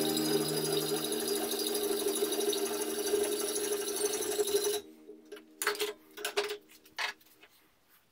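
Hand hacksaw cutting through a steel bar held in a bench vise, with quick back-and-forth strokes. The sawing stops suddenly about five seconds in, leaving a few short knocks.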